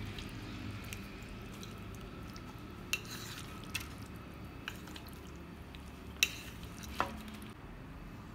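Marinated fish strips being turned by hand in a wet marinade on a metal platter, with soft squelching and a few sharp clicks against the metal. The loudest click comes about six seconds in, and one about a second later rings briefly.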